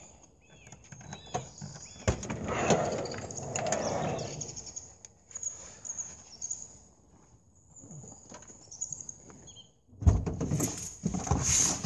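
Footsteps on gravel, then the sliding side door of a Toyota Hiace van opening about two seconds in, followed by knocks and rustling as a rucksack and gear are handled. A louder clatter comes near the end.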